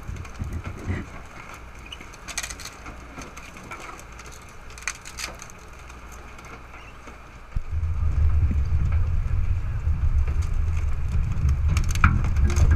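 Hirl bioshredder mixing compost: woody garden waste and twigs crackling and splintering as the rotor churns them with soil. A little past halfway a much louder deep rumble sets in and continues as the machine takes on load.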